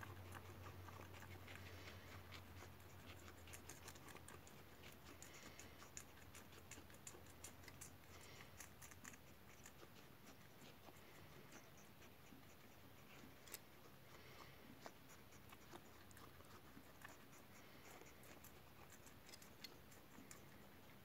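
Faint, irregular small clicks and scratches from guinea pigs close to the microphone: one chewing a lettuce leaf, the other sniffing and nosing at the phone.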